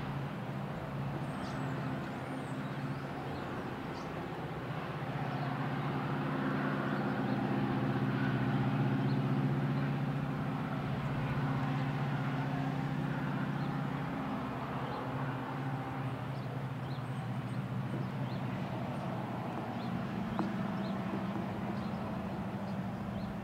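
Distant CN diesel freight locomotives running, a steady low engine drone with several tones that is loudest a quarter to halfway in, then fades. A car crosses the tracks near the end.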